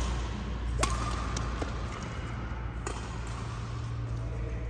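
Badminton racket strikes on a shuttlecock, sharp clicks with a loud one about a second in and another near three seconds, over the steady low hum of a large indoor hall. A brief squeak sounds alongside the loud hit.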